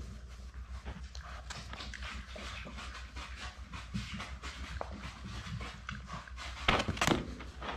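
Labrador retriever puppy eating from a plastic bowl: a quick, wet run of chewing and lapping clicks, with a few louder knocks near the end.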